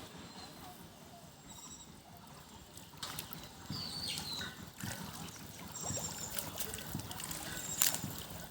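Water trickling and splashing, with scattered light clicks and a few short high chirps, getting louder about three seconds in.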